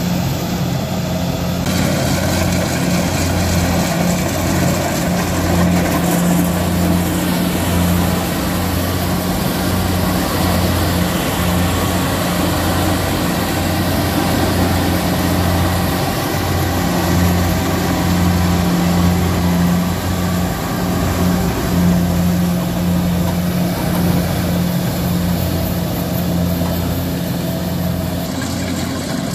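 Kubota DC-70 combine harvester's diesel engine running steadily as the machine works through soft, muddy ground, close to bogging down. The steady engine hum is mixed with the noise of its harvesting machinery.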